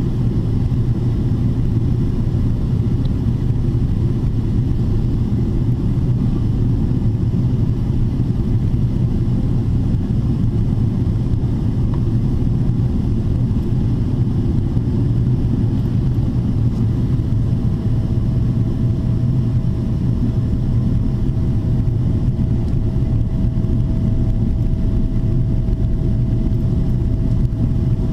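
Steady low drone inside the cabin of a Boeing 777-300ER on descent, from its GE90-115B turbofan engines and the airflow over the fuselage. About two-thirds of the way through, a faint steady whine joins in and holds.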